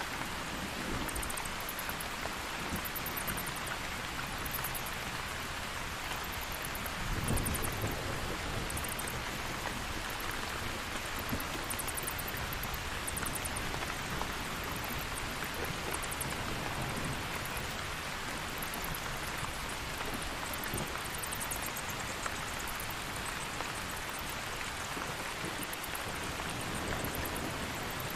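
Steady rain, with a short low rumble of thunder about seven seconds in. Bursts of very high, rapid bat chittering come and go throughout.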